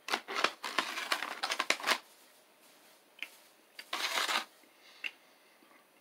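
Crinkling and crunching from handling and eating dry beef jerky: a dense run of crackly bursts in the first two seconds, and one more burst about four seconds in.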